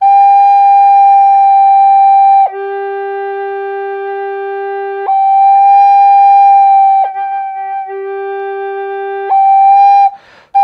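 Alto recorder played in long held notes, swapping between middle G and bottom G an octave below: high, low, high, low, then a short high note, with the lower G quieter. A breath-pressure exercise in which the air is set to where each G rings best. A quick breath near the end.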